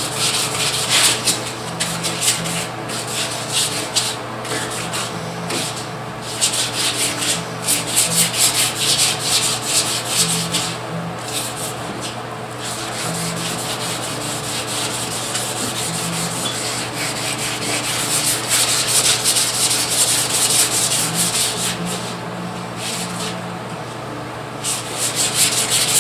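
Sandpaper rubbed back and forth by hand over the freshly painted truck bed side: colour sanding the Rust-Oleum finish to cut down orange peel. The quick strokes pause briefly a few times over a steady low hum.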